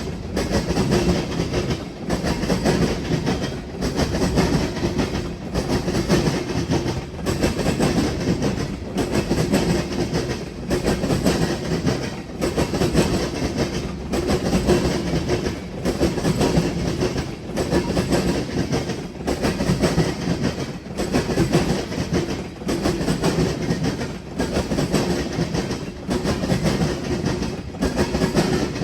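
Freight train cars rolling across a railroad diamond crossing, their wheels clattering over the crossing in a steady repeating rhythm about every second and a half to two seconds as car after car goes over.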